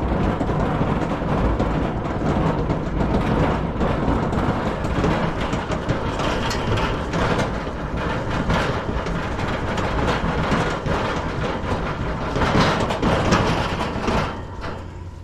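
Loud, steady rumbling noise on a phone microphone, with scattered knocks and rustles while a heavy load is carried.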